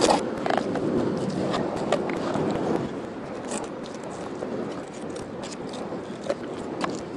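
Knife scraping and slicing through a brassy chub (isuzumi) on a plastic cutting board as the fish is filleted. Rough scraping strokes with small clicks, louder in the first three seconds, then quieter cutting.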